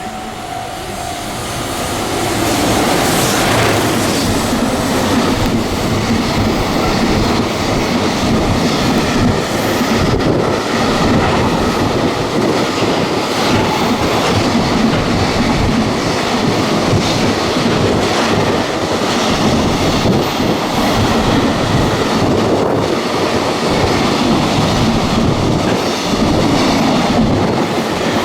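A train passing through at speed on JR West's Biwako Line, with a loud, steady rumble and the clatter of wheels over the rails. It builds over the first two or three seconds, then holds.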